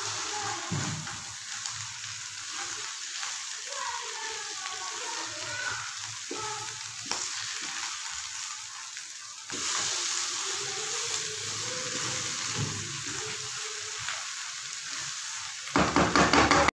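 Grated carrot halwa sizzling in a non-stick pan while a wooden spoon stirs and scrapes through it, the last of its water cooking off as it starts to release ghee. It gets louder about halfway through, and louder again with quick strokes in the last second.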